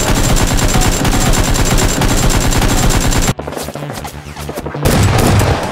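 Rapid burst of automatic gunfire that stops about three seconds in, with a second short loud burst near the end, over background music.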